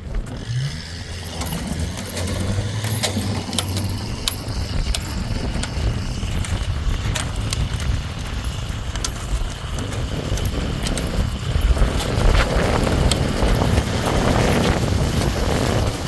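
A motor vehicle engine running with a low rumble, scattered clicks and knocks over it, and the noise swelling for a few seconds near the end.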